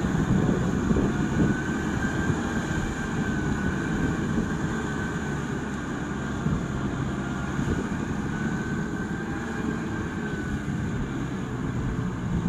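Kubota M6040SU tractor's four-cylinder diesel engine running steadily under load as it drags a rotary tiller through the soil. A faint high whine rises and falls twice.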